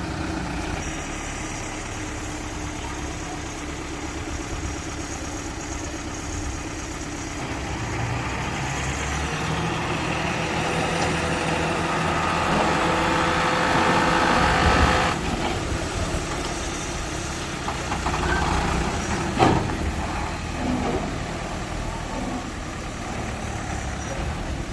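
Diesel engine of earthmoving machinery running. It swells louder from about a third of the way in and drops off abruptly just past halfway. A single sharp knock comes a few seconds later.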